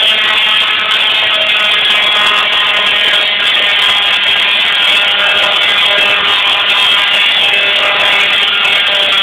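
Musical Tesla coil sounding a loud, sustained buzzing note rich in overtones, its spark discharge played as music.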